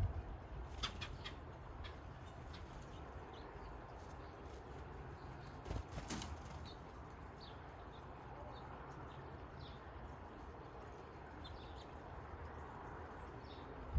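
Outdoor ambience of faint, scattered bird chirps over a steady low rumble, with a few soft clicks about a second in and one more about six seconds in.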